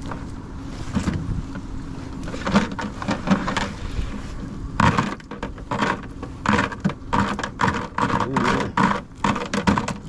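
Irregular rattles, clicks and knocks of gear being handled in a boat over a steady low hum, with the knocks coming thicker and louder in the second half.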